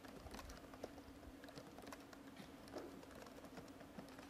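Faint, irregular clicking of typing on a laptop keyboard.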